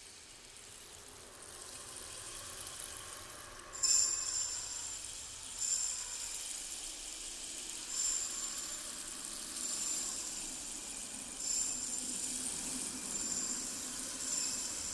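A soft hiss that slowly grows, then from about four seconds in, short high jingling strikes roughly every two seconds, like bells being shaken.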